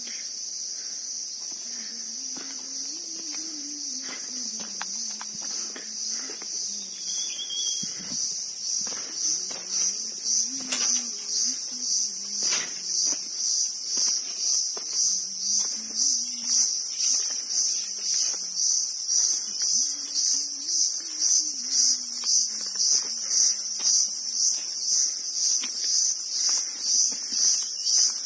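Jungle insect chorus: a high-pitched, shrill drone that starts steady, then pulses about twice a second and grows louder through the second half.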